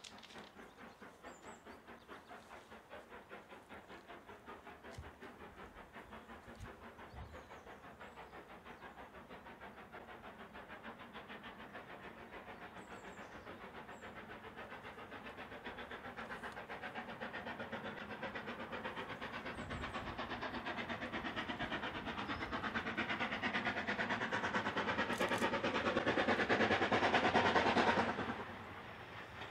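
Steam train running with a fast rhythmic beat, growing steadily louder, then dropping away suddenly near the end.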